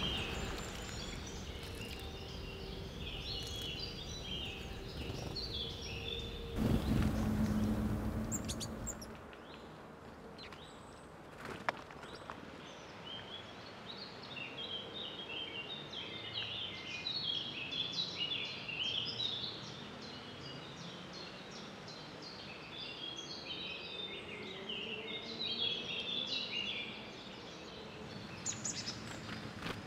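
Small woodland songbirds chirping and singing: many quick, high notes in irregular phrases. About seven seconds in, a low rushing noise rises for two seconds over the birdsong, and a single sharp click comes a few seconds later.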